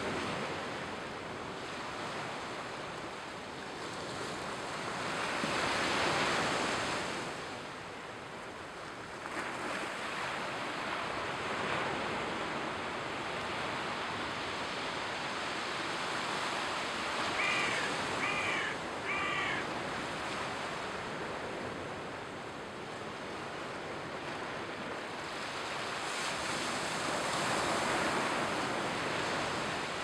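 Sea waves breaking and washing onto a sandy beach in a continuous surf, swelling louder twice. A bird calls three times in quick succession about halfway through.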